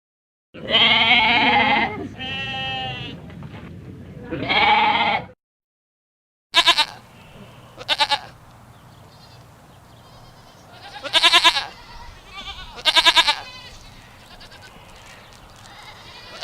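Goats bleating: several long, wavering bleats, a moment of total silence about five seconds in, then shorter separate bleats every second or two.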